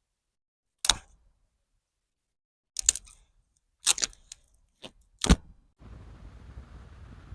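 A few sharp clicks or knocks with dead silence between them, the last and loudest a little after five seconds in; from about six seconds in a steady rushing noise sets in.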